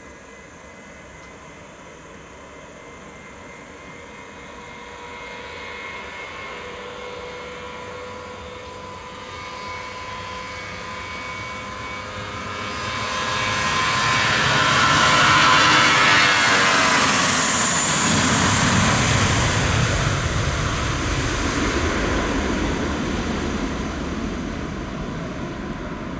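Airbus A321-232's IAE V2500 turbofans at takeoff power, with a steady whine growing louder as the jet rolls down the runway toward and past the listener. A little past halfway the whine falls in pitch as it passes, and the sound turns into a broad rumble that slowly fades as it climbs away.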